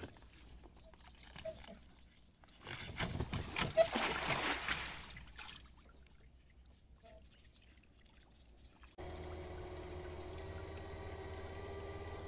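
Cast net thrown from the boat hitting the river surface: a loud spreading splash about three seconds in, lasting about two seconds. From about nine seconds in, a steady hum with a few held tones starts abruptly.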